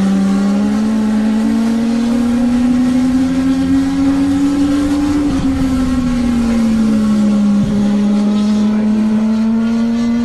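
Legend race cars' motorcycle-derived engines running at racing speed. One engine note is the loudest, climbing steadily for about five seconds, falling away over the next second or so, then creeping up again, with other cars' engines running fainter underneath.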